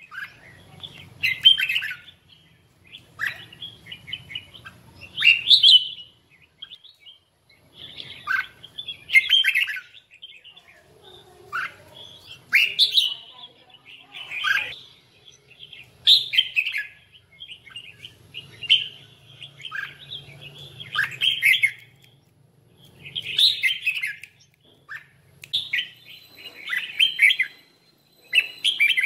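Red-whiskered bulbul singing its challenge song: short warbling phrases, one every second or two, with brief pauses between them.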